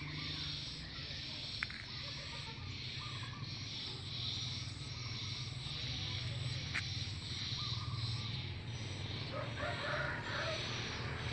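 Outdoor ambience: a steady high chorus pulsing about twice a second, like insects, with scattered short bird chirps and a low rumble underneath. Two sharp clicks, about 1.5 s and 7 s in.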